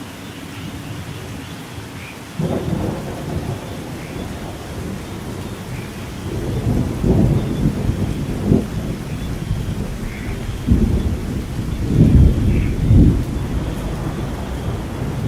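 Steady rain with rolling thunder. A low rumble breaks in about two seconds in and swells again several times, loudest shortly before the end.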